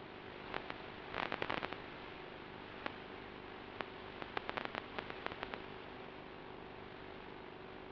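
Steady radio static hiss with a faint hum, broken by crackling clicks in two clusters, about a second in and again from about four to five and a half seconds, typical of the audio channel of an FPV video link recorded on a DVR.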